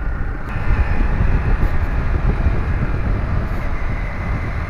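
Yamaha MT15's single-cylinder engine running under way, with heavy wind rumble on the microphone. The sound grows louder about half a second in.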